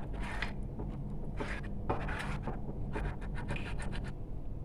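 A spoon scraping and stirring against the sides of a glazed ceramic bowl, mixing a sticky sauce of honey, soy sauce and ketchup, in short irregular scratchy strokes.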